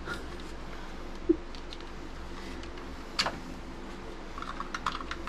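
Light clicks and taps from the plastic power-window switch panel being handled: a sharp click about a second in, another about three seconds in, and a few small ticks near the end, over a steady low hum.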